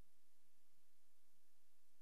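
Silent soundtrack with no recorded sound: only a faint steady hiss and a low hum.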